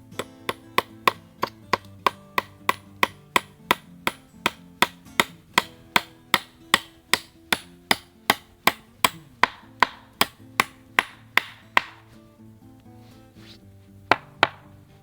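A hammer driving a nail into wooden bench boards in a fast, even run of about three blows a second. It stops about twelve seconds in, and two more blows follow near the end.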